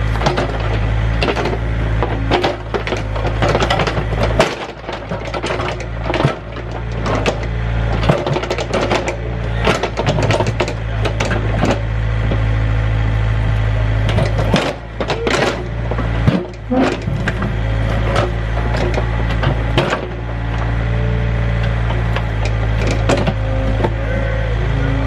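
Engine of a working machine running steadily with a low hum, easing off briefly twice, with many sharp cracks and knocks over it.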